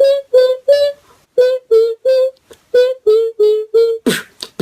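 Beatboxer's mouth sounds: a run of short, clipped, pitched notes, each with a click at the start, about three a second, stepping up and down around the same pitch like a small melody. Near the end they give way to hissing, snare-like bursts.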